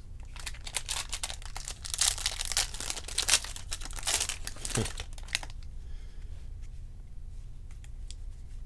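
Foil wrapper of a Topps baseball card jumbo pack being torn open and crinkled: about five seconds of dense crackling and ripping, then softer, sparse rustles and light ticks as the stack of cards is handled.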